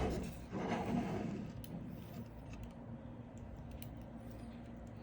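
Faint handling sounds of small hardware being worked by hand: soft rubbing in the first second or so, then a few light scattered clicks, over a faint steady low hum.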